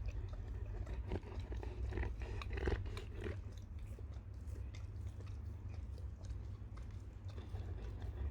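A pet chewing, a run of small irregular crunching clicks over a low steady hum.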